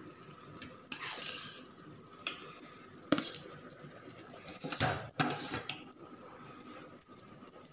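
A metal spoon scraping and clinking against a steel bowl and a metal cooking pot as cooked vegetable masala is spooned out over rice, in a few separate scrapes and knocks, the loudest about five seconds in.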